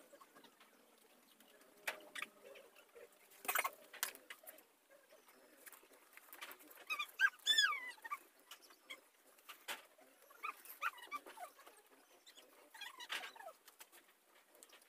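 A few short, high, wavering animal whimpers, the loudest about halfway through, with weaker ones later. Several sharp taps and handling sounds come in the first few seconds.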